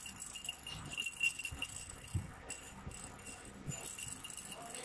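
Baby's plastic rattle-ball toy jingling faintly as it is moved in her hand, with a few soft knocks.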